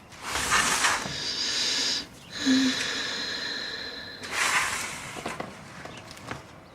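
A person's heavy breathing: a few loud, sharp inhales and exhales a second or so apart, in between quieter breaths.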